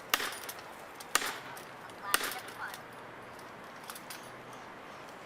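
Sharp hammer blows on a felling wedge at the base of a pine, about one a second, three strong strikes followed by two faint taps near the end.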